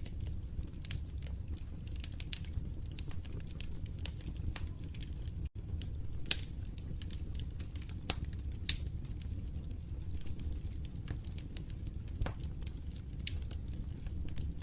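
Log fire burning in a fireplace: a steady low rumble with scattered sharp crackles and pops throughout, a few of them louder.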